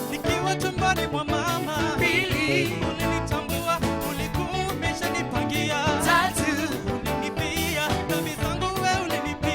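Live band music with vocals: sung melody lines over drums, bass and keyboards, with a steady beat.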